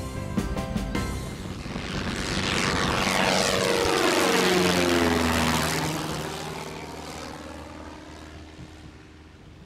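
Single-engine propeller light aircraft climbing out after takeoff and passing low overhead: the engine and propeller drone swells, is loudest about four to five seconds in, drops in pitch as it passes, then fades as the plane flies away.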